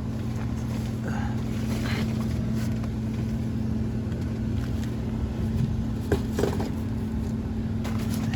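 Crawl-space HVAC indoor unit running with a steady low motor hum, with a couple of sharp knocks about six seconds in.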